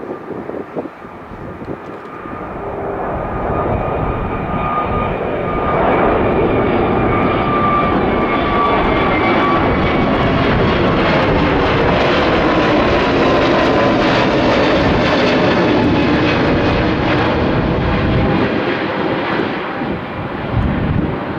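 Airbus A321neo's twin Pratt & Whitney geared turbofans at takeoff power as the jet departs, swelling from about two seconds in to a loud, steady jet rush. Through the middle, a whine slides down in pitch as the aircraft passes, and the noise eases a little near the end.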